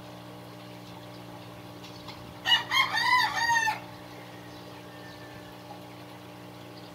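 A rooster crowing once, about two and a half seconds in: a loud call of several arching notes lasting just over a second.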